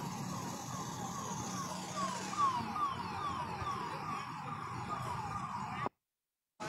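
Ambulance siren sounding in quick repeating falling sweeps, about two and a half a second, over a steady hiss of traffic in floodwater. It cuts off suddenly near the end.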